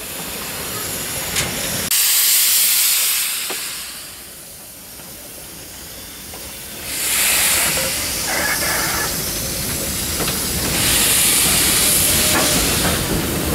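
J Class steam locomotive J515 letting off steam low at its cylinders in three loud hissing blasts, about two, seven and eleven seconds in, with a softer hiss between them and a low rumble in the second half.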